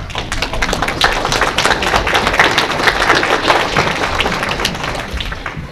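Audience applauding: many hands clapping together, building after about a second and dying away near the end.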